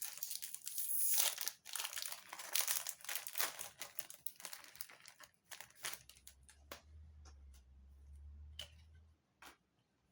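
Foil Pokémon booster pack wrapper crinkling and tearing open, with dense crackling for about five seconds, then thinning to a few sharp clicks and rustles as the pack is handled.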